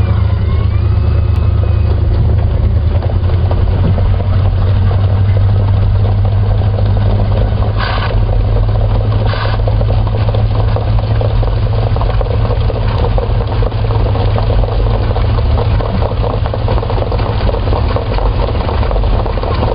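Mobile starting-gate car's engine running with a steady low hum, heard from on the gate. Two short higher-pitched sounds cut in about eight seconds in and again a second and a half later.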